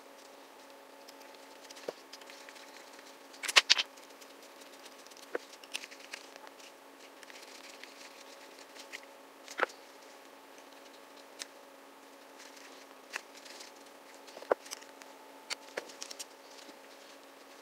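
Scattered clicks and light knocks from a small Keihin carburetor and a screwdriver being handled during reassembly, the loudest a quick double click about three and a half seconds in. A steady hum runs underneath.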